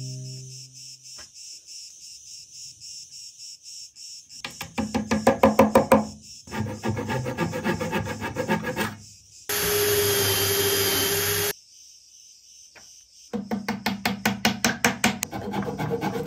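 Rapid back-and-forth strokes of a thin flush-cut hand saw trimming glued wooden dowels flush with a pine box side. The sawing comes in three spells, with a steady two-second whir of a cordless drill between the second and third.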